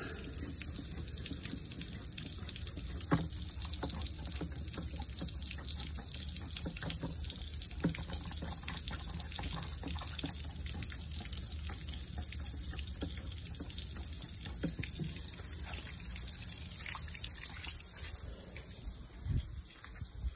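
Water from a garden hose running steadily into the outboard motor's cooling-water hookup, a constant gushing rush with a few faint clicks and knocks; the rush eases slightly near the end. The engine is not yet running.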